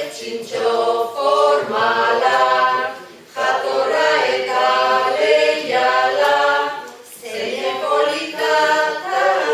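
A group of voices singing together, in three phrases with short pauses about three and seven seconds in.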